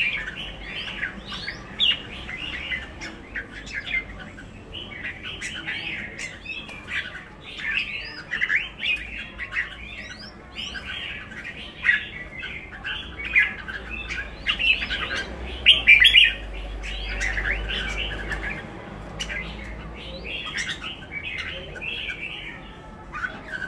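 Caged pied bulbuls chirping and calling in quick, short, high phrases, coming in clusters on and off with a brief lull partway through.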